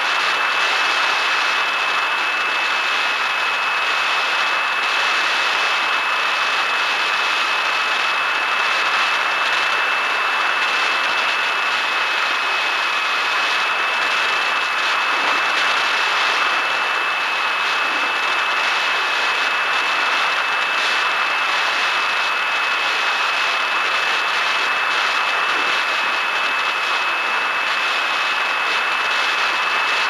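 Bixler RC foam plane's electric motor and pusher propeller running at steady cruise, a constant high whine over a rushing hiss of air past the onboard camera.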